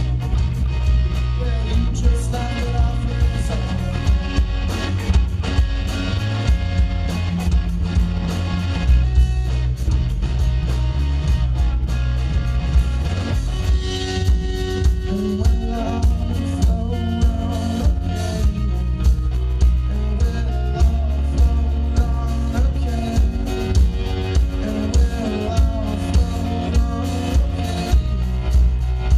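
Live rock band playing: electric guitar, bass guitar and a drum kit keeping a steady beat.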